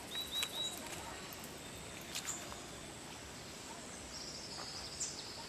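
Birds calling over a quiet riverbank background hiss: three short high chirps in the first second, then a rapid high trill about four seconds in, with a faint steady high-pitched whine underneath and a couple of soft clicks.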